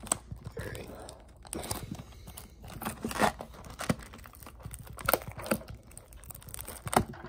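Plastic shrink wrap on a Topps trading-card box being picked at and torn open, crinkling with irregular sharp crackles.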